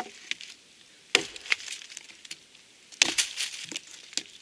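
Hatchet chopping a dry dead branch: several sharp, splintering strikes about a second apart.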